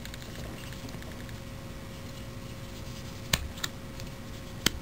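Hard plastic clicks from a phone holster being handled, its rotating belt clip turning: two quick clicks a little past three seconds in and a sharper, louder one near the end, over a faint steady hum.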